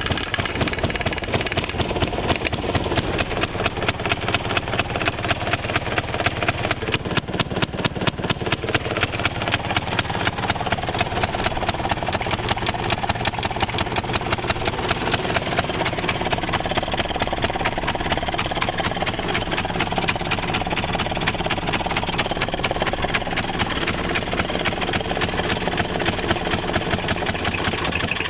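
Maytag Model 92 single-cylinder two-stroke washing-machine engine running steadily, with a rapid, even beat of firing strokes: a nice-running engine.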